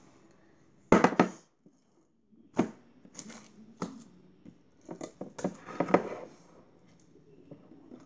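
Thick glitter slime being stretched, dropped and squished into a glass dish: a string of short squelching, slapping sounds, the loudest about a second in and a quick run of them past the middle.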